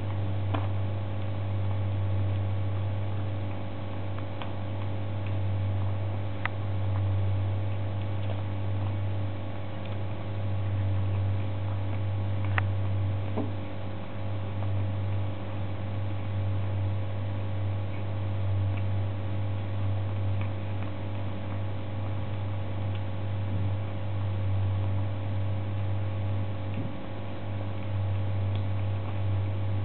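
A kitten chewing salmon off a plate, heard as a few faint, scattered clicks over a steady low hum.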